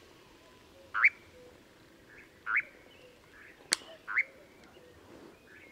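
Eurasian nightjar giving short 'co-ic' contact calls, three of them, each a quick upward sweep, with a single sharp wing clap between the second and third.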